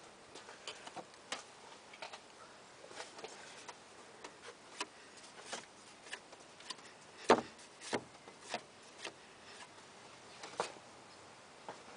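Scattered light clicks and taps at an irregular pace, the loudest two close together about seven seconds in.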